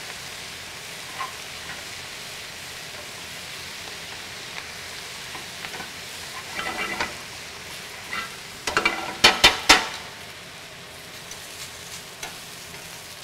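Bok choy and greens sizzling in a hot skillet as they are tossed with metal tongs. Short clanks of the tongs against the pan come in a small cluster about halfway through and a louder ringing run about two thirds of the way in.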